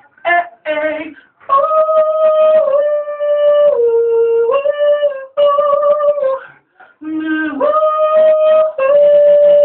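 A man singing a cappella, long sustained "ooh" notes held and stepping between pitches with short breaths between phrases, in a small room.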